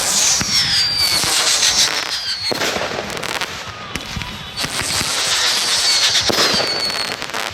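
Fireworks going off one after another: dense crackling with shrill whistles falling in pitch, one spell about a second in and another in the second half.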